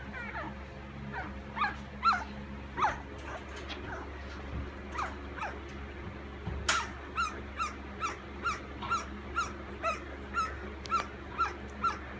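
Week-old chocolate Labrador puppy whimpering: short, high squeaks that fall in pitch, scattered at first, then from about halfway a steady run of about two to three cries a second, the cries of an upset puppy.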